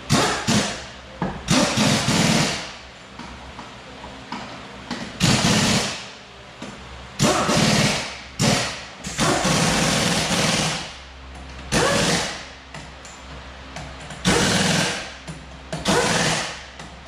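Impact wrench running lug nuts onto a wheel hub in about a dozen short rattling bursts, each lasting up to about a second and a half, with brief pauses between them.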